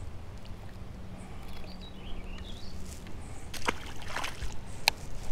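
Water sloshing against a small fishing boat's hull over a low steady hum. In the last two seconds there is a splash in the water beside the boat and several sharp clicks.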